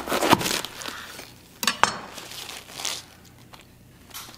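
A chef's knife cutting down through a head of savoy cabbage on a wooden cutting board: crunching and crackling of the crinkled leaves, loudest in the first second, then two sharp clicks a little over a second and a half in.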